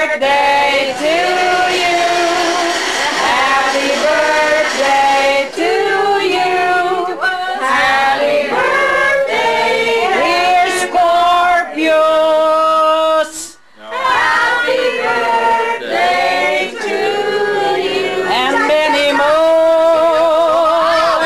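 A small group of men and women singing a birthday song together, with a brief pause about two-thirds of the way through.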